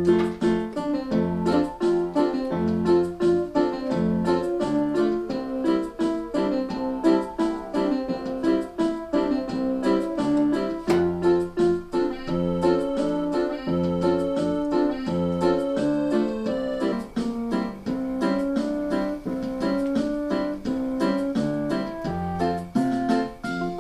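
Electronic keyboard playing a continuous piano-voiced tune, with evenly paced melody notes over chords and a repeating bass line.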